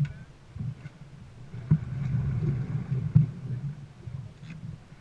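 Dragon boat under way on open water, with wind gusting on the microphone and a few sharp knocks, about one every second and a half.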